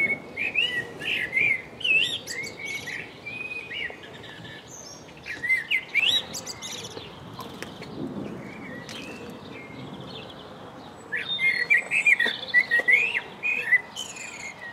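A songbird singing phrases of varied, clear whistles in three spells, the last the loudest, over a faint steady hiss.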